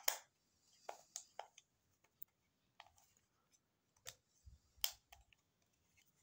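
Scattered light clicks and knocks from a Soviet FED 5 rangefinder camera body being handled and turned over in the hands, with a sharp click at the start and another about five seconds in.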